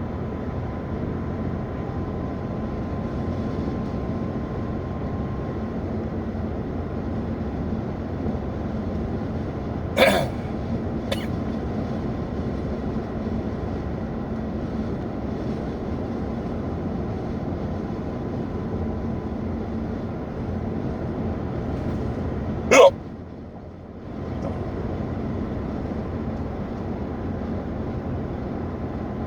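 A man hiccuping loudly twice, about ten seconds in and again about twenty-three seconds in, as part of a persistent bout of hiccups. Under it runs the steady hum of a car on the road.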